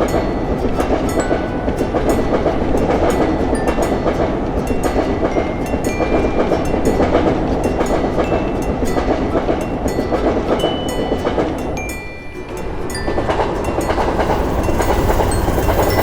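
A train passing at a level crossing: a steady rumble of wheels on rails with rapid clicking over the rail joints. The sound dips briefly about twelve seconds in, then picks up again.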